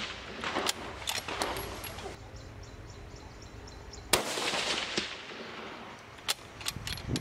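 Howa 6.5 Creedmoor rifle fired once about four seconds in: a sharp crack whose echo rolls away over about a second. Before it, the echo of a previous shot fades out and a few light clicks sound; a few more sharp clicks follow the shot.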